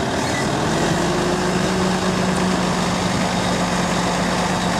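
Volvo semi-truck tractor's diesel engine running at low speed as the truck drives slowly across the lot, a steady low hum.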